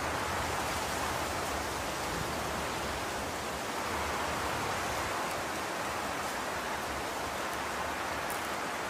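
Steady, even background hiss with no distinct strokes or events.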